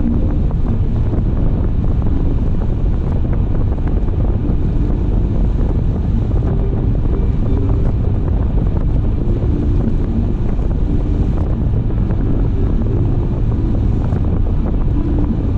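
A car driving steadily, with a constant low rumble of road and wind noise.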